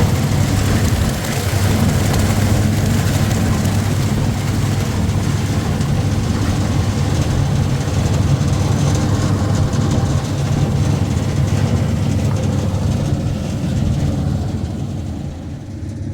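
A heavy engine running steadily with a low, even drone, growing quieter near the end.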